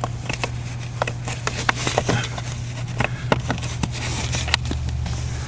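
Scattered sharp clicks and light scraping of hands handling a blower motor resistor wiring connector and plastic parts, over a steady low hum.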